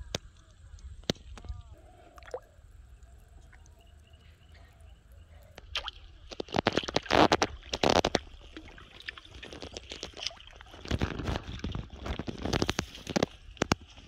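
A hooked carp thrashing and splashing at the water's surface as it is pulled in to the bank, in loud bursts about six to eight seconds in. A second run of thrashing comes a few seconds later as it is landed.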